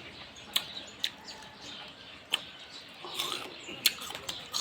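Close-up chewing and mouth smacking while eating vinegar-soaked bilimbi fruit: sharp wet clicks at irregular intervals, with a longer stretch of chewing noise about three seconds in.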